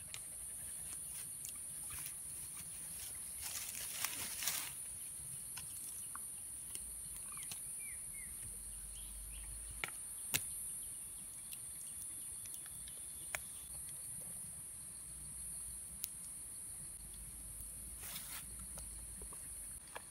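Steady high-pitched insect drone, with scattered light clicks and taps and a brief rustle from hands handling food, a small glass spice jar and a wooden bowl on a wooden cutting board. A few short bird chirps come in partway through.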